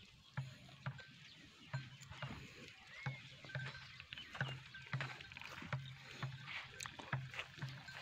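Footsteps on sandy ground at a steady walking pace, about two steps a second, with light scuffing and clicking.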